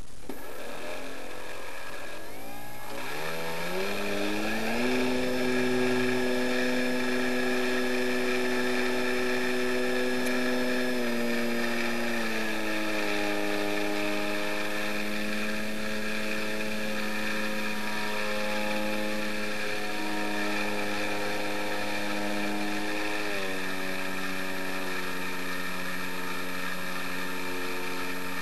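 Twin electric motors and propellers of a Multiplex Gemini model plane winding up as it is hand-launched, then running at a steady droning whine in flight. The pitch drops in two steps, first about a third of the way in and again near the end, as the throttle is eased back.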